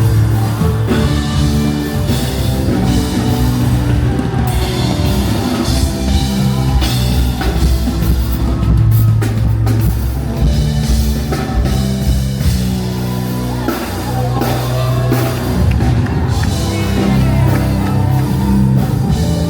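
Loud live band music with drum kit, bass and guitar and some singing, in a rock style.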